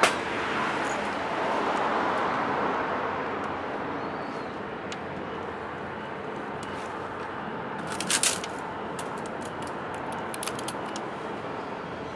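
Wood fire crackling in a stainless steel tent stove, with scattered small pops. A low background rumble fades over the first few seconds, and there is a short clatter about eight seconds in as a small folding table is set down.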